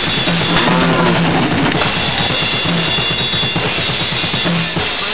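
Rock-style background music with a fast, busy drum kit beat.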